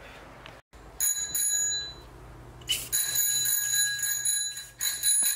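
Aerosol can of clear coat being shaken, its mixing ball rattling and ringing the metal can. It comes in two spells, a short one about a second in and a longer one from about three seconds on.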